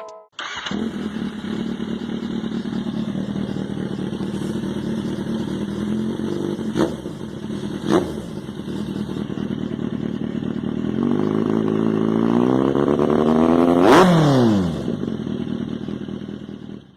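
Kawasaki Z800's inline four-cylinder engine through an SC-Project CR-T slip-on exhaust, idling. It gives two quick throttle blips about a second apart partway through, then a slow climb in revs that peaks near the end and drops quickly back to idle.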